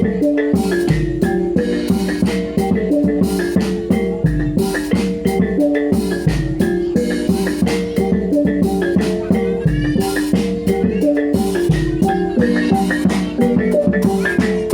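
Reog Bantul percussion ensemble playing: tuned metal gongs ring out a repeating pattern of pitched notes over quick drum strokes, with a deep bass beat about every two seconds.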